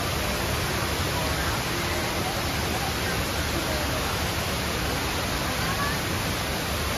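The Rain Vortex, an indoor waterfall, pours from the dome's oculus with a steady, even rush of falling water. Faint crowd voices sit underneath.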